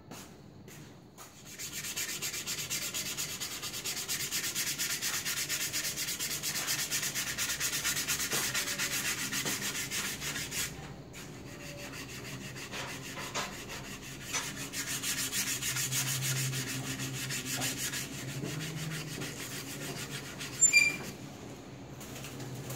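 Sandpaper rubbed quickly back and forth along a wooden sword scabbard, a steady scratchy hiss with a short break about halfway through. A single sharp click near the end.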